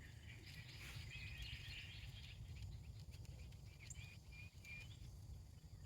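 Faint birdsong: scattered short, high chirps and whistles over a steady low rumble of outdoor background noise.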